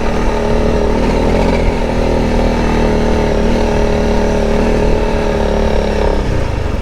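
Honda CRF motorcycle engine running steadily while riding a gravel mountain track, its note dropping near the end as the throttle is eased off.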